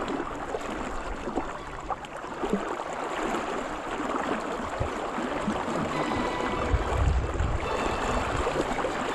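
River water rushing steadily, with a brief low rumble about seven seconds in.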